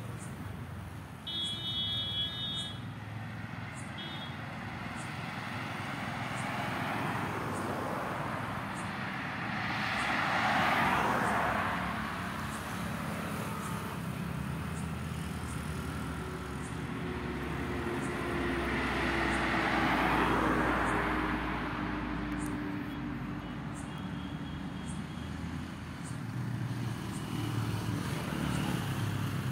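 Road traffic: vehicles passing one after another, with two rising and falling swells of engine and tyre noise about ten and twenty seconds in, the second with an engine note sliding down in pitch as it goes by. A brief high pitched tone sounds about a second in.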